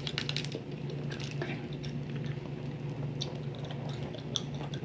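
Gum chewing close to the microphone: soft, wet, squishy mouth clicks at irregular intervals over a steady low hum.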